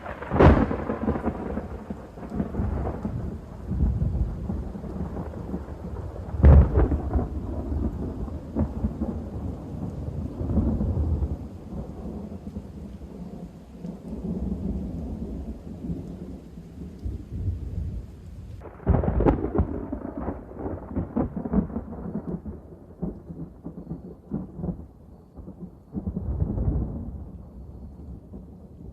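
Thunder: a sharp clap right at the start, another about six and a half seconds in, and a third about two-thirds of the way through, each rolling on into long, uneven low rumbles.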